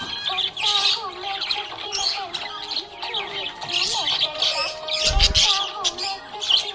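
Budgerigars (budgies) chirping and warbling in a continuous overlapping chatter. A low thump comes about five seconds in.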